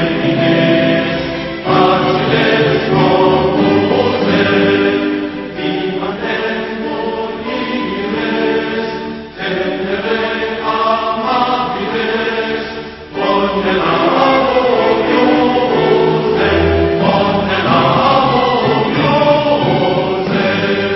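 Choir singing together in long held phrases, with brief breaks about nine and thirteen seconds in.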